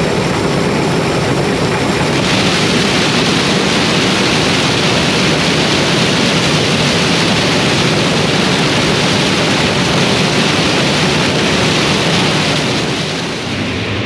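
A combine harvester running at work: a loud, steady rush of engine and threshing noise that gets brighter about two seconds in and eases slightly near the end.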